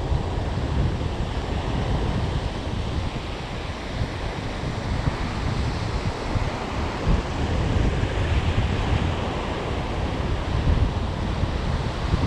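Ocean surf breaking and washing up the sand in a steady wash, with wind rumbling on the microphone.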